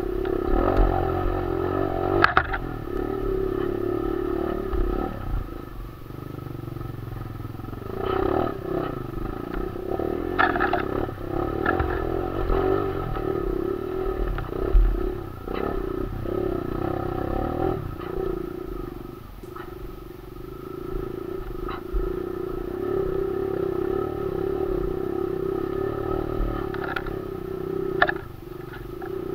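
Kawasaki KLX 150 trail bike's single-cylinder four-stroke engine running off-road, its note rising and falling with the throttle and easing off twice, heard from a helmet camera. Sharp knocks and rattles from the bike jolting over ruts and logs, the loudest a couple of seconds in, near the middle and near the end.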